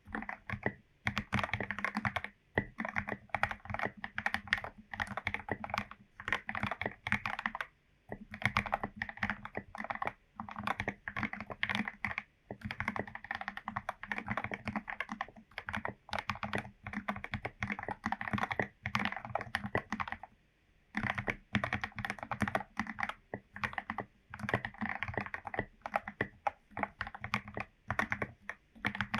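Fast typing on a Royal Kludge RK84 mechanical keyboard with lubed Gateron Yellow linear switches, foam-, tape- and hole-modded. Dense runs of keystrokes break off for short pauses every few seconds.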